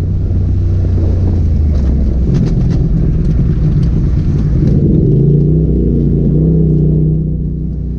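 Polaris RZR Turbo S side-by-side's turbocharged twin-cylinder engine running as it is driven, its pitch rising and falling with the throttle over a steady low rumble.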